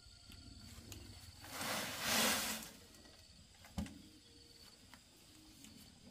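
Loose soil and a metal wheelbarrow being worked: a rush of scraping, sliding earth for about a second, then a single sharp knock.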